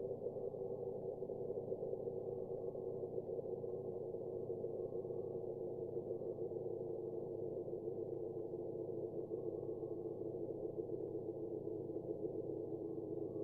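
Steady electronic drone: a dense cluster of low and middle tones held without a break at an even level.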